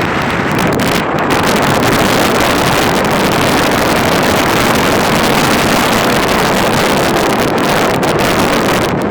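Snowstorm wind blasting across the microphone: a loud, steady rushing roar with no let-up.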